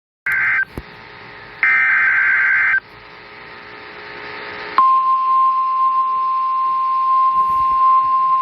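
Emergency Alert System SAME header data bursts from a NOAA Weather Radio broadcast: two harsh, buzzing digital screeches, the second about a second long, with radio hiss between them. Then, about five seconds in, the 1050 Hz weather radio warning alarm tone begins as one steady high tone, signalling a warning, here a severe thunderstorm warning.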